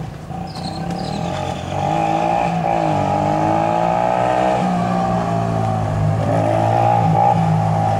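Motorcycle engines running, getting louder about two seconds in, with the engine pitch dipping and rising again a couple of times.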